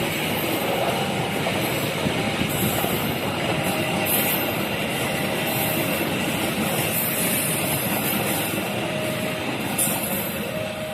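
A train passing over a level crossing: a loud, steady rumble and rattle of wheels on rail. The crossing's warning siren sounds faintly under it as a steady electronic tone.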